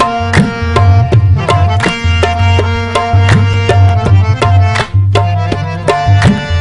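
Instrumental music: quick drum strokes in a running rhythm over a steady held tone, with low booming drum notes that bend in pitch.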